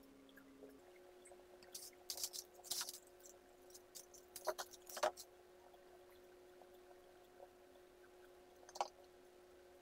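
Faint clicks and light jangling of a ball chain being handled and pressed onto a glitter-sheet leaf, clustered about two to three seconds in, with single clicks near five and nine seconds, over a faint steady hum.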